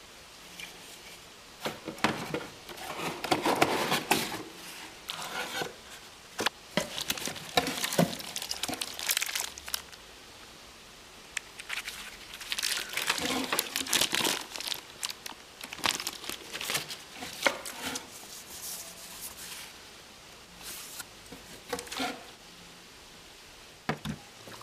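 Clear plastic packaging bags crinkling and rustling as small parts are handled, in irregular bursts with a few sharp clicks.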